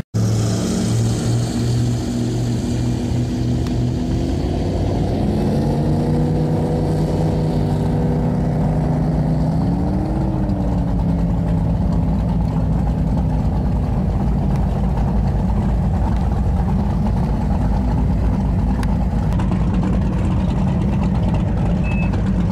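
Go-fast powerboat's engines throttling up, their note climbing in steps about four and ten seconds in, then running at speed under a steady rush of wind and water.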